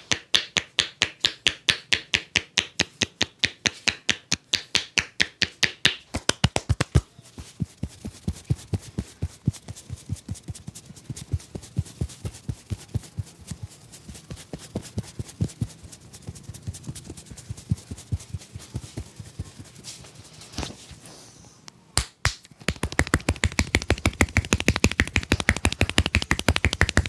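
A barber's hands striking rapidly in a percussive head massage, a fast train of sharp claps and slaps at about five a second. After about seven seconds the strikes turn softer and sparser, they break off briefly past twenty seconds, then come back fast and strong near the end.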